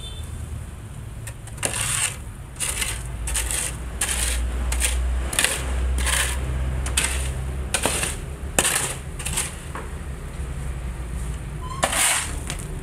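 A series of short gritty crunches and scrapes on sandy, gravelly ground, coming irregularly about one or two a second and loudest near the end, over a steady low rumble.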